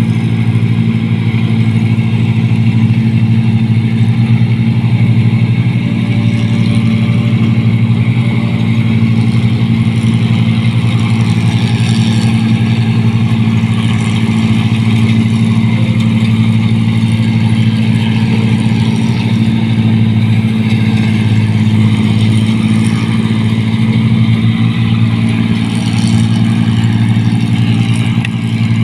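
Rice combine harvester's diesel engine running steadily under load as the machine cuts and threshes rice, a constant loud drone with the clatter of the working machinery.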